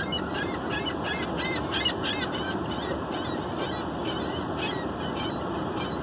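A flock of gulls calling, many short high calls overlapping, dense in the first half and thinning out later, heard from inside a car over a steady background hiss.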